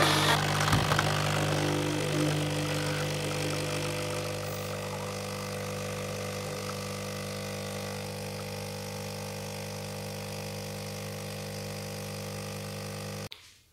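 Lavazza A Modo Mio capsule espresso machine's pump humming steadily while it brews espresso into a mug, cutting off sharply near the end as the brew finishes. Background music fades out over the first few seconds.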